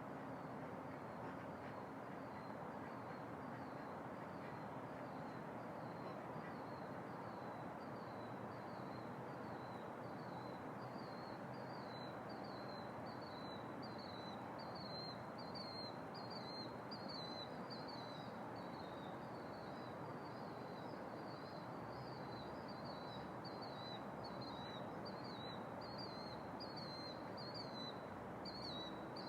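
A high-pitched double call repeated over and over in an even series, from an unidentified night-calling animal taken to be a bird. It grows clearer about halfway through, over a steady background hiss.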